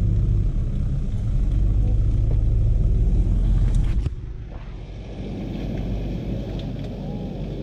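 Motor vehicle on the move, a loud low rumble that cuts off abruptly about four seconds in, leaving quieter vehicle noise.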